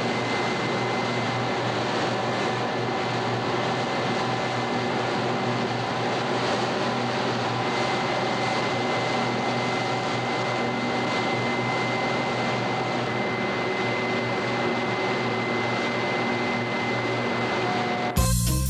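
Paper mill process machinery running, a loud, constant industrial din with a thin steady whine through it. Music cuts in suddenly at the very end.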